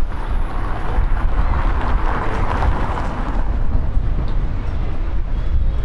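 Outdoor city street ambience: a steady wash of background noise with a deep low rumble, swelling briefly about two seconds in.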